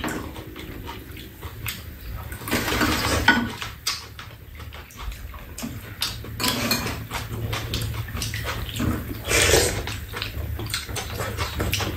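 Two people eating at a low table: metal spoons clicking against ceramic bowls, with chewing and slurping of soup from the spoon. Louder slurps come about three seconds in and again near the ten-second mark.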